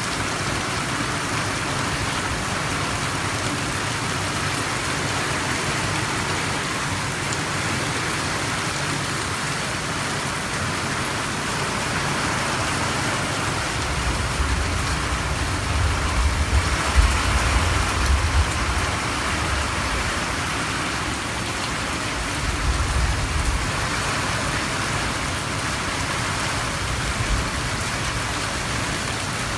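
Heavy rain pouring down, a steady hiss of rain. A low rumble joins it for a few seconds about halfway through and again briefly a little later.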